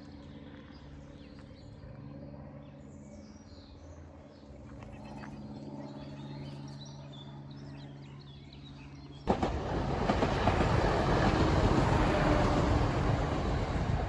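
A low steady hum with faint birdsong, then about nine seconds in a Northern Rail passenger train suddenly becomes loud as it passes close by, a heavy rushing noise of wheels and wind.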